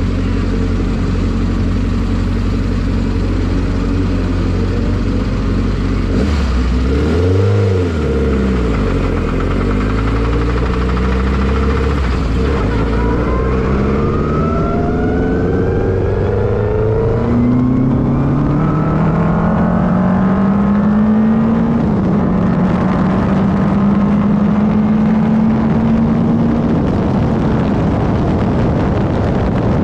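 Single-seater racing car engine running and pulling up through the gears: its pitch drops and recovers about seven seconds in, then climbs in several long steps and holds steady near the end.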